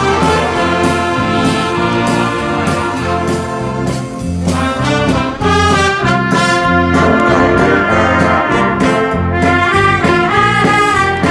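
A large gospel band of trumpets, trombones and tuba with violins and a drum kit playing a lively instrumental piece, the brass carrying the tune over regular drum and cymbal hits. The band briefly thins about four and a half seconds in, then comes back at full strength.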